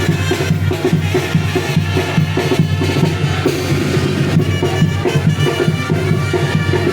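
Tamborazo band playing: the tambora bass drum beats a steady rhythm under trumpets and saxophones.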